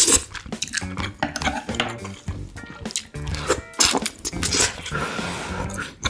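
Background music over eating sounds: chewing and lip smacks as a shrimp is eaten by hand, with chopsticks clicking against dishes.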